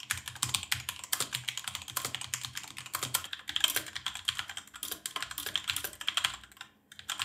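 Fast typing on mechanical gaming keyboards, a dense run of key clicks and clacks. It begins on the Patriot Viper 770 with its linear Kailh Red switches and changes partway through to the SPC Gear GK550 with its tactile Kailh Brown switches. There is a short pause near the end.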